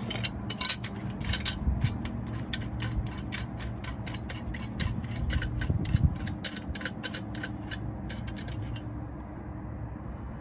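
Quick, irregular metallic clicks and clinks, several a second, from metal tools and fittings being worked on a furnace gas valve; they stop about nine seconds in, leaving a low steady hum.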